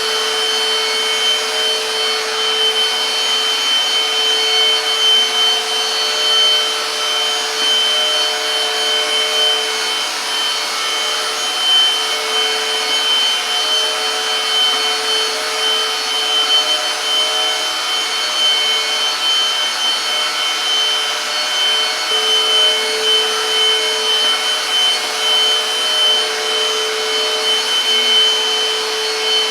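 Silvercrest Cordless Cyclone Aqua vacuum-mop running steadily, its motor giving a constant high whine as it works dried stains off a floor.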